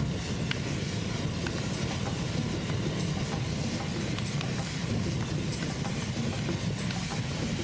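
Wood fire burning in a steel-drum furnace used to melt lead: a steady rushing of the flames with scattered small crackles and pops.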